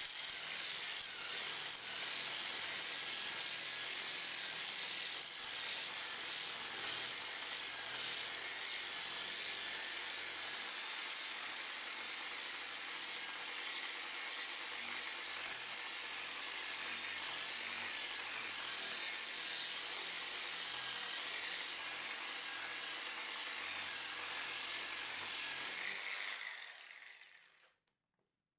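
Angle grinder fitted with a hook-and-loop sanding pad, running steadily while it sands a wooden board. About two seconds before the end its motor winds down and stops.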